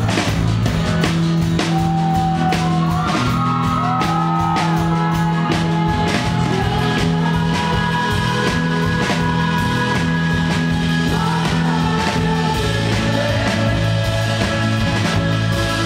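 Live rock band playing: a man sings over a strummed acoustic guitar, sustained low notes and a steady drum beat, with the singing coming in about a second and a half in.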